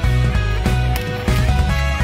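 Background music with guitar, a steady beat and a strong bass line.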